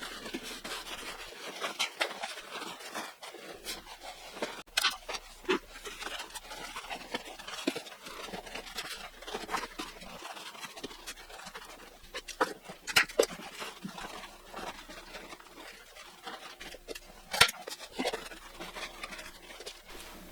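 Pond liner being handled and pressed into place inside a wooden trunk, with a scattered rustling and a few sharp knocks or clicks.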